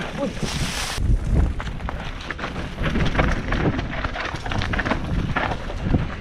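Mountain bike ridden fast down a rocky dirt trail, heard from a helmet camera: wind buffeting the microphone and the tyres and frame rattling with frequent knocks over stones and roots, with a brief hiss just under a second in.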